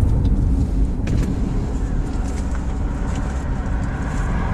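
Steady low rumble of engine and tyres heard inside a car's cabin, easing slightly as the car slows.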